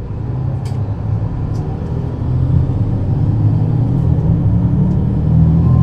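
Mercedes-Benz Citaro C2 city bus's engine running and growing louder about two and a half seconds in, with two short clicks in the first two seconds.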